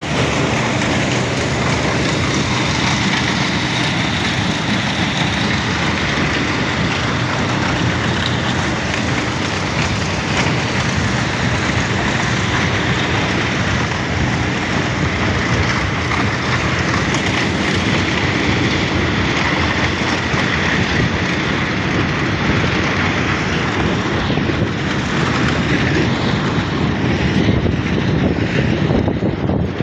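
A large engine running steadily, a constant drone with a low hum beneath it.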